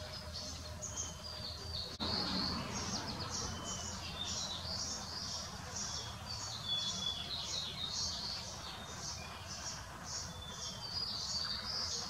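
Songbirds calling and singing: a steady run of short, high chirps about three a second, with a few brief whistled notes mixed in. The background changes abruptly about two seconds in.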